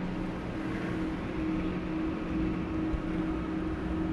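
Steady low hum with a faint hiss from a running household appliance.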